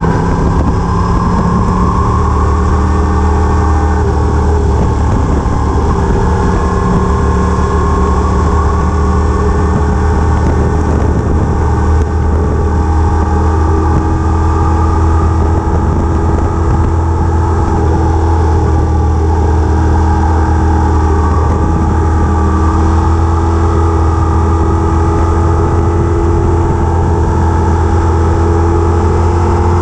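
A vehicle's engine running steadily while under way: a loud, constant low drone with a tone that slowly rises in pitch.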